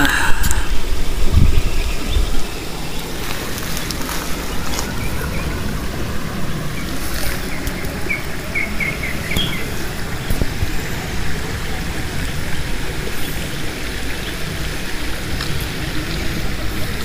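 Shallow rocky stream running steadily. A bird gives a quick run of five or six short chirps about eight seconds in. There is a low rumble in the first couple of seconds.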